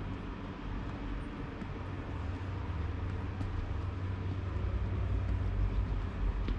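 Street traffic noise with a steady low engine rumble from a nearby vehicle, growing slightly louder.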